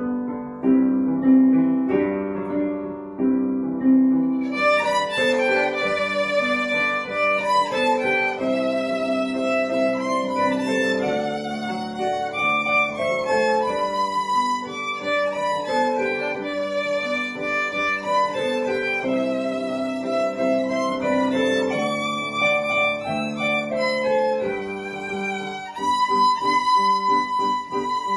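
Solo violin playing a classical piece with piano accompaniment; the piano plays alone at first and the violin comes in about four and a half seconds in, playing long held notes.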